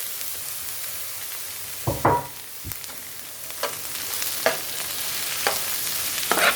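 Carrots sizzling in hot oil in a pot, with a loud clatter about two seconds in and then a spoon scraping the pot in short strokes about once a second as the vegetables are stirred.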